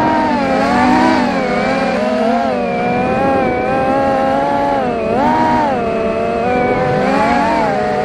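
FPV racing quadcopter brushless motors and propellers whining, the pitch rising and falling continuously with throttle.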